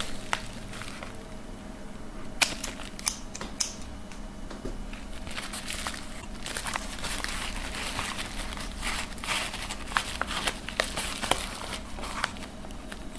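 Packaging being opened and handled by hand: irregular crinkling and rustling with many small clicks and crackles.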